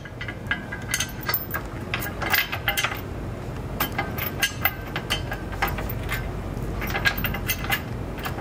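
Metal clinking and ticking of bolts, washers and a wrench as a receiver hitch's mounting bolts are fitted and run in. The ticks come in irregular clusters over a low steady hum.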